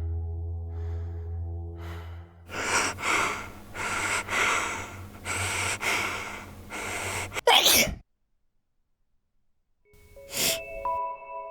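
A person building up to a sneeze: a run of loud gasping breaths, then the sneeze, which cuts off suddenly into silence. A low drone with faint sniffs runs under the start, and bell-like music tones come in near the end.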